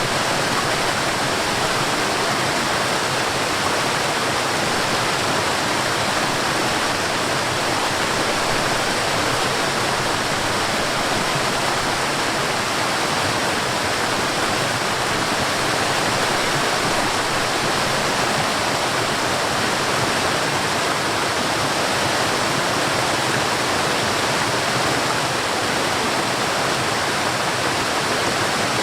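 Waterfall: a steady, even rush of falling water, loudest in the middle and upper range, without any change.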